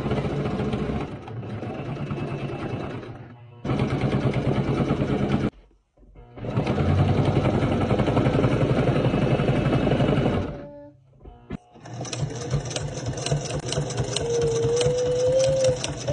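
Singer Simple electric sewing machine stitching a zipper into a jacket in four runs of rapid needle strokes, stopping briefly between runs: about 3 s in, about 5.5 s in, and for a second or so after about 10.5 s.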